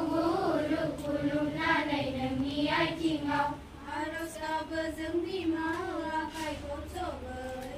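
A large group of schoolchildren singing a prayer together in unison, with long held notes in a slowly moving melody.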